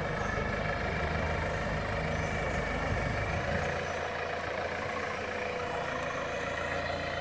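Clark forklift engine running as the truck drives along carrying a stack of wooden pallets. The engine note shifts about halfway through.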